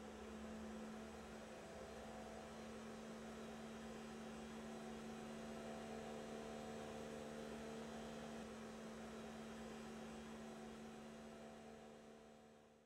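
A steady, faint hum under a constant hiss, easing slightly near the end.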